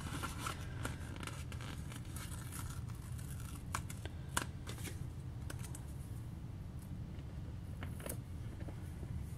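A paper sticker being peeled from its sticker sheet and backing: soft crackling and tearing of paper, with a few sharp ticks, the loudest about four and a half seconds in, over a steady low hum.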